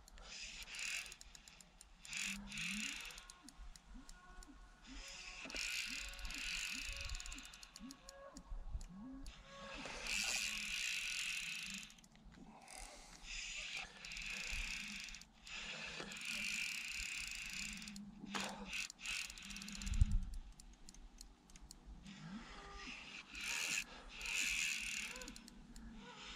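Fishing reel being wound in repeated bursts of one to two seconds, with short pauses between.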